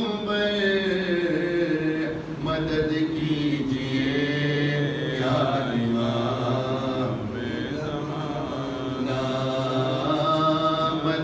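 A man chanting a munajat qasida, a devotional supplication poem, solo and unaccompanied. His voice holds long notes that bend slowly in pitch.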